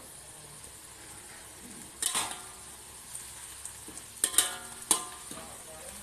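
Melinjo leaves sizzling in a hot steel wok while a metal spatula stirs them. The spatula strikes the wok with sharp, ringing clanks: once about two seconds in, then three more in quick succession.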